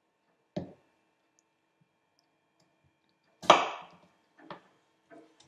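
Kitchen knife chopping rock melon against a wooden chopping board: a few separate sharp knocks, the loudest about three and a half seconds in.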